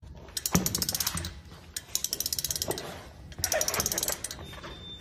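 Rapid ratchet-like clicking in three bursts of about a second each, with a single knock about half a second in.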